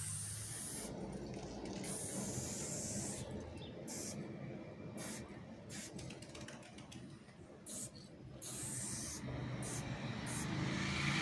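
Aerosol spray paint can hissing in short bursts of about a second with brief pauses, spraying paint onto a wall. A low rumble runs underneath and grows louder near the end.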